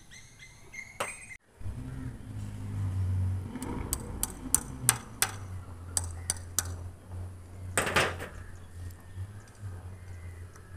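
Sharp metallic clicks and taps of a hand tool against the steel injection packers set in the concrete for PU injection, about ten in quick succession and then a short cluster a couple of seconds later. A steady low hum runs underneath, and birds chirp in the first second and a half.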